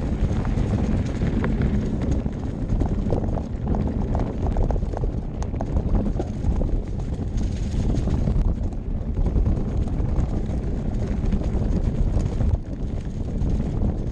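Santa Cruz Bronson mountain bike riding fast down a dirt trail: wind rushing over the bike-mounted camera's microphone, with tyres on dirt and an irregular clatter of the bike over bumps and roots.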